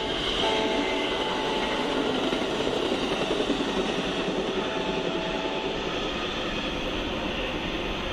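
Passenger train rolling past, its horn sounding briefly about half a second in and faintly again around five seconds in. The rumble of the cars fades slowly once the train has gone by.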